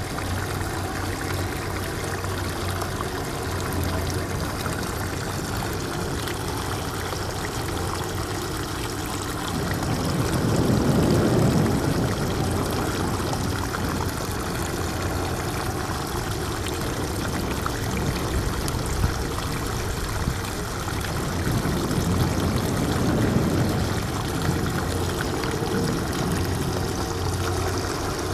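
Shallow seawater trickling and lapping in a rocky tide pool at low tide, a steady rush of water with a low hum beneath it. It swells louder twice, about a third of the way in and again near the end.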